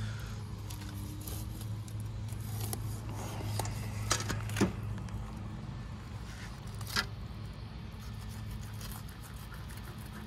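Fillet knife cutting a gag grouper on a plastic cutting board: scattered short scrapes and ticks of the blade, sharpest about four seconds in and again about seven seconds in. A steady low hum runs underneath.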